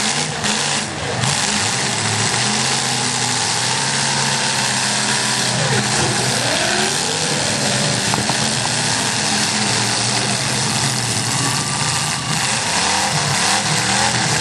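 Several demolition derby car engines running at once, one revving down and back up about halfway through.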